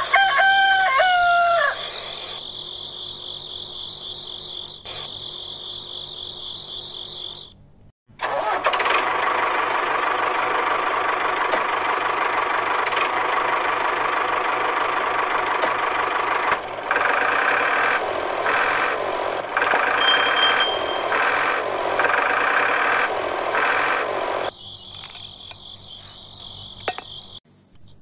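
A rooster crows once at the start, over a steady high whine. After a short break near eight seconds, an engine running sound with an even, pulsing beat takes over, its tone changing a few times. The high whine comes back near the end.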